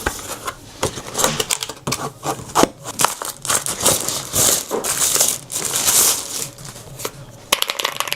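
Plastic packaging crinkling and rustling as it is handled, mixed with irregular clicks and knocks. It is loudest in the middle, and a quick run of sharp clicks comes near the end.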